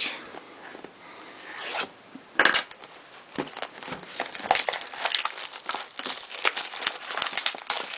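Packaging being handled as a jumbo box of baseball cards is opened: plastic wrap and cardboard crinkling and rubbing in a stream of small crackles, with a sharper rip or knock about two and a half seconds in.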